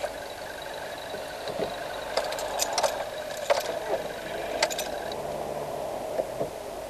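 Car engine and road noise heard inside the cabin while driving slowly, with a few scattered light clicks and rattles. The engine note drops away about five seconds in.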